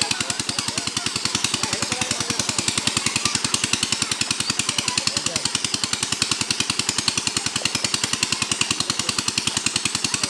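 A small engine running steadily with an even, fast chugging of about ten beats a second, with voices faintly behind it.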